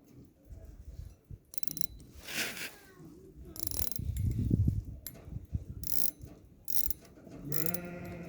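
Zentra caliber 13 pocket watch being wound at the crown: irregular ratchet clicks of the winding mechanism mixed with low knocks from handling the watch. A short pitched hum comes near the end.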